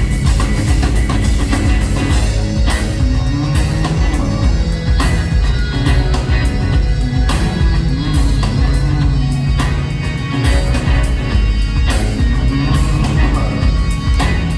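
A rock band playing live in an instrumental passage, loud and steady, driven by a drum kit and bass with guitar.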